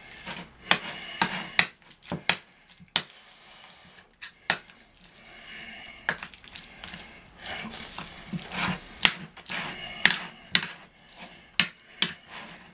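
Fork mashing cottage cheese on a ceramic plate: irregular clinks and taps of the metal fork against the plate.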